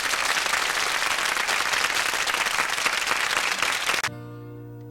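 Studio audience applauding at the end of a song, cut off abruptly about four seconds in, followed by a quieter held musical chord.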